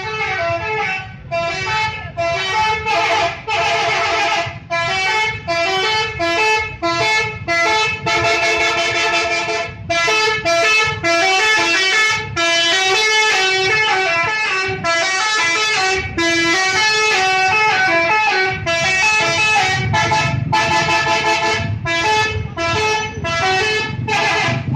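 A bus's 'telolet' horn, a set of tuned air horns, loudly playing a tune of quick stepped notes in phrases with short gaps between them.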